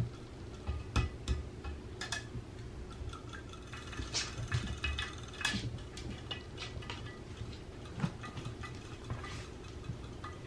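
Irregular light clicks and taps from a battery-powered robotic fish toy swimming inside a glass swing-top jar of water, with a cat's paw touching the glass.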